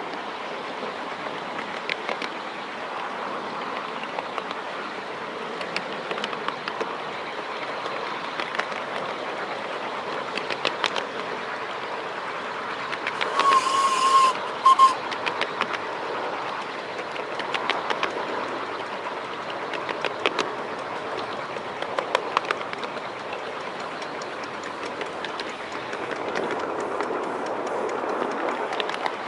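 Miniature 7¼-inch gauge steam train running along the track, its wheels clicking over the rail joints. About halfway through, a short whistle sounds twice, once longer and once brief.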